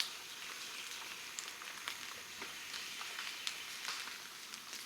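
Faint, steady outdoor hiss with scattered small ticks and clicks throughout.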